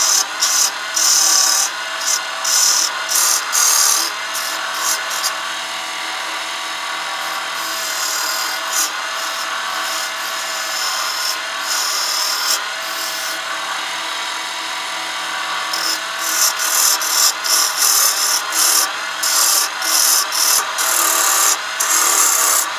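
Chisel cutting a spinning hardwood blank on a wood lathe, a dry hissing cut. The cuts come as short strokes about twice a second, then a longer continuous pass from about five seconds in, and short strokes again near the end.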